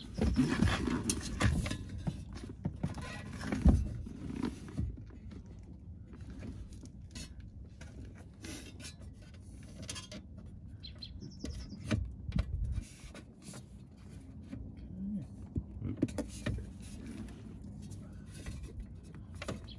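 Hands fitting a metal under-dash panel and starting its quarter-inch screws by hand: irregular rustling, taps and small metal clicks, with one sharp knock about four seconds in.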